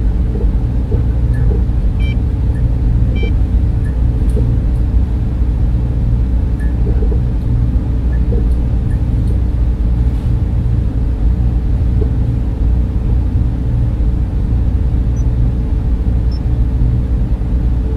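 Sci-fi spaceship interior ambience: a steady, deep machinery and fan hum, with a few faint short beeps scattered through it.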